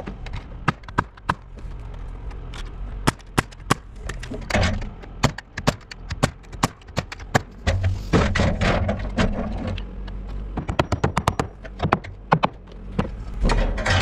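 Hand hammer driving nails into tongue-and-groove wooden roof boards: a series of sharp strikes, with a quick run of lighter taps about three-quarters of the way through.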